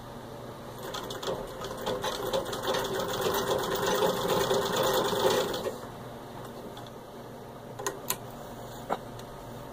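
Singer 66 treadle sewing machine stitching through six layers of denim, picking up speed into a fast, even run for about five seconds, then stopping. A few sharp clicks follow near the end.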